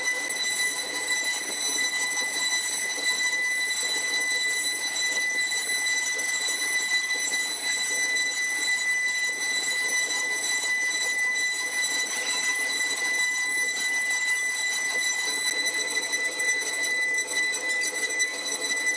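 Multi-spindle CNC router carving wooden panels: the high-speed spindles give a steady, high-pitched whine over the even hiss of the bits cutting wood.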